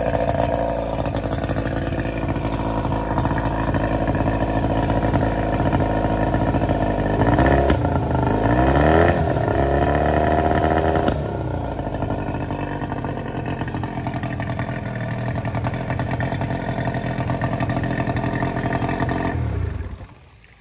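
New Hangkai 18 hp two-stroke outboard motor running steadily during its break-in. About a third of the way in the throttle is opened twice, the pitch rising and falling each time, then it settles back to a steady run. The sound cuts off shortly before the end.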